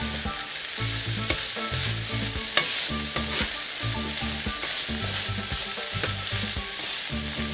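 Shrimp, onions and bell peppers sizzling as they sauté in a frying pan, with a couple of sharp clicks of a utensil against the pan as they are stirred.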